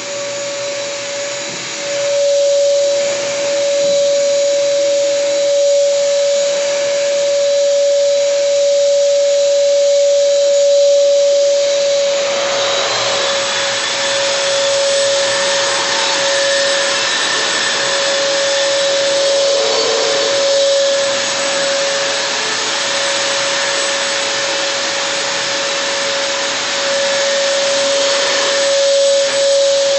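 Round wall sander hooked to a dust-extraction vacuum, running steadily with a constant whine over a motor hiss. About twelve seconds in, the hiss grows louder and brighter.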